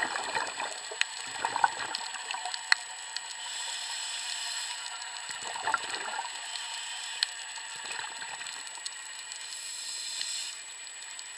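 Underwater sound through an action camera's housing just below the surface: a steady hiss with scattered sharp clicks and a few short bursts of bubbling.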